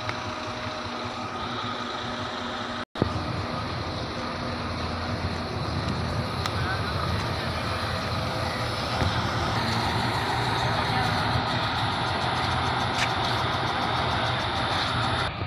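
Kato truck-mounted crane's diesel engine running steadily. It cuts out briefly about three seconds in and then comes back louder.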